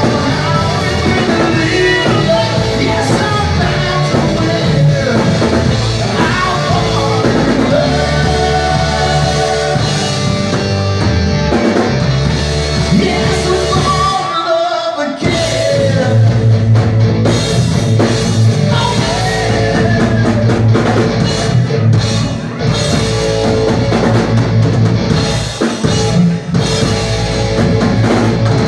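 Rock song with a singer, guitar and drum kit; about halfway through the bass drops out for a moment before the full band comes back in.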